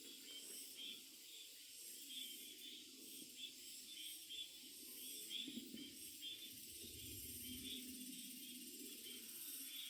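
Faint small birds chirping in short repeated notes over a steady high hiss, with a brief low rumble about seven seconds in.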